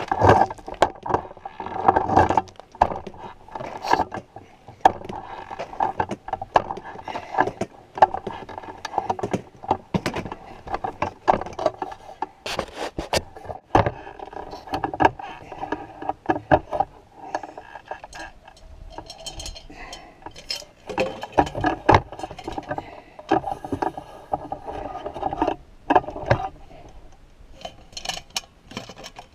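Irregular knocks, clicks and scraping of things being handled and moved.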